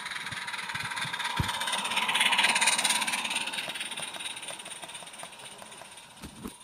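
Small live-steam garden-railway locomotive passing close by with a train of hopper wagons: its exhaust hiss swells to a peak about two to three seconds in, then fades as the wagons roll past with a string of light wheel clicks over the track.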